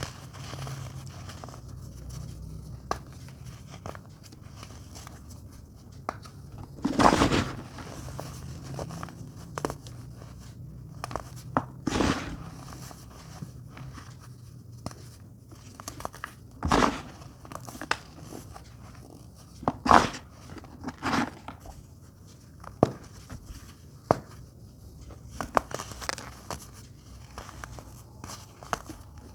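Chunks of baking soda being crumbled and crushed by hand, with soft crunches and crackles at an irregular pace and a louder crunch every few seconds.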